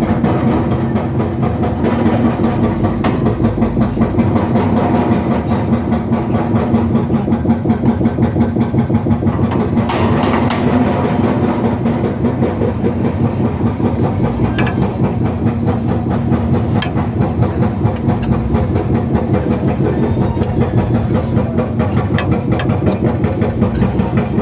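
Excavator-mounted hydraulic breaker hammering in rapid, steady blows over the excavator's running diesel engine, loud throughout.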